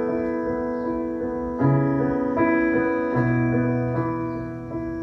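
Piano or electric keyboard playing slow, sustained chords, with the bass note changing every second or two: the instrumental introduction to a worship song.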